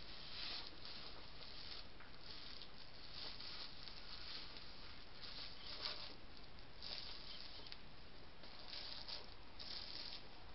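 Two hedgehogs jostling at close quarters, giving short, breathy huffing and rustling bursts about once a second.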